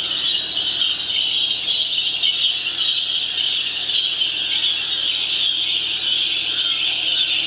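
Many salangai ankle bells jingling together in a steady, dense jangle, as from a group of bell dancers walking.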